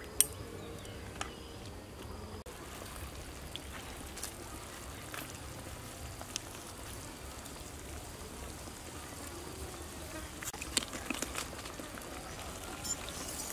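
Metal wok of spicy frog soup broth with chopsticks tapping and scraping against it as the greens are stirred in, a sharp tap just after the start and a cluster of taps about ten to eleven seconds in. Insects buzz in the background.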